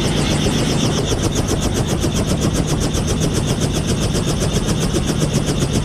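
Helicopter running on the pad at close range: its main rotor beats in a rapid, even chop over a steady engine hum.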